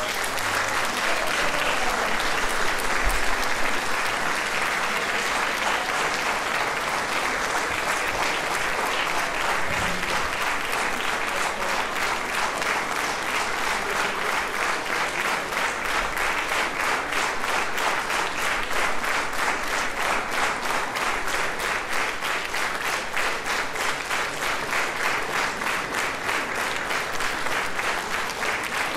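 Concert audience applauding; the clapping falls into a steady beat, clapping in unison, from around the middle onward.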